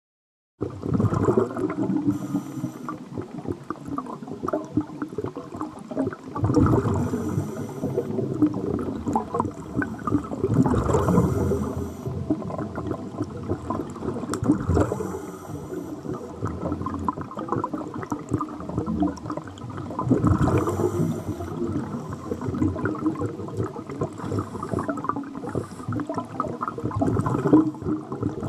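Underwater recording of scuba breathing: the hiss of a regulator and bubbling exhalations, swelling in cycles about every four to five seconds and starting about half a second in.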